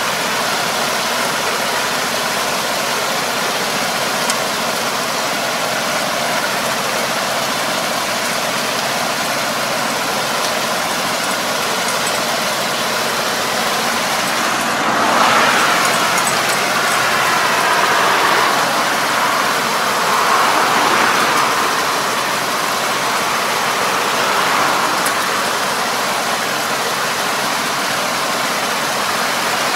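Tractor engine running steadily under load while its drive harrow churns the mud and water of a flooded rice paddy, a dense steady wash of sound that swells a little about halfway through.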